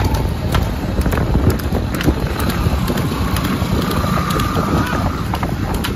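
Wind rushing over the microphone with motorcycle and road noise, riding fast alongside a racing buffalo cart, with scattered light clicks and knocks from the cart.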